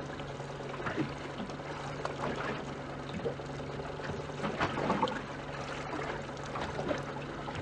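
Water lapping and splashing against the hull of a small boat, over a steady low hum, with scattered short clicks and knocks.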